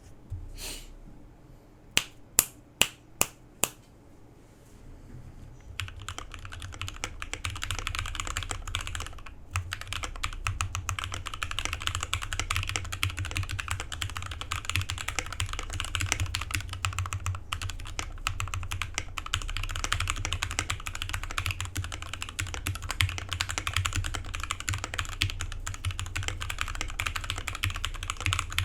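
Custom Drevo Gramr 84 mechanical keyboard with lubed and filmed Gateron Yellow linear switches, foam-modded, being typed on. About two seconds in come five sharp separate clicks, then fast continuous typing starts around six seconds in and keeps on, with a brief pause early on.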